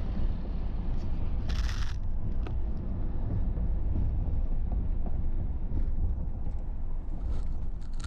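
Road noise inside a moving car's cabin: a steady low rumble of tyres and engine at a cruising speed. A short burst of hiss comes about one and a half seconds in, and another at the very end.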